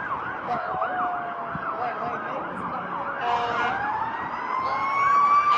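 Emergency vehicle sirens: a fast, rapidly repeating yelp, joined about three seconds in by a second siren's wail that rises in pitch and grows louder.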